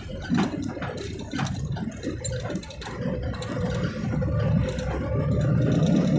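Truck moving slowly, heard from inside the cab: low engine rumble with cab rattles and clicks, joined about halfway through by a steady whine, and the whole growing louder toward the end.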